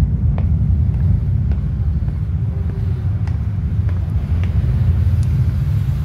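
A steady deep rumble, with faint light clicks scattered through it.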